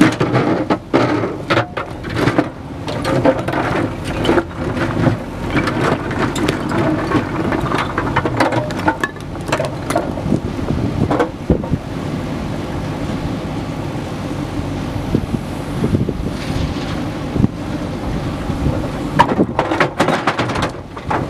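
JCB backhoe loader's diesel engine running under load while the backhoe bucket digs into a pile of broken stone, with rocks clattering and scraping for the first dozen seconds. Near the end a burst of clatter as the bucketful of stones tips into the tractor trolley.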